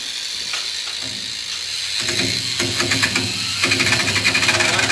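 Dremel rotary tool with a tungsten carbide bit running at a high whine and cutting into the steel lid of a 20 mm ammo can, working out from a drilled pilot hole. About two seconds in the grinding gets louder and rougher as the bit bites into the metal.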